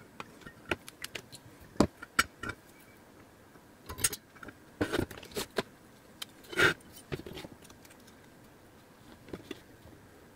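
Steel angle, a steel plate and small metal tools being picked up, slid and set down on a cutting mat: scattered clicks, knocks and short scrapes, loudest a little under two seconds in and again at about six and a half seconds.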